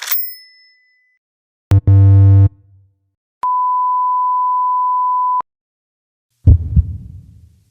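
A string of stock sound effects. It opens with a short bright ding. About two seconds in comes a click and then a low, harsh game-show buzzer for under a second. Next is a steady 1 kHz censor beep lasting about two seconds, and near the end heartbeat thumps begin.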